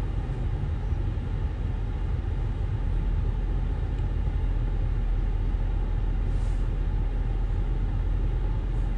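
Steady low rumble with a faint hiss above it, unchanging throughout.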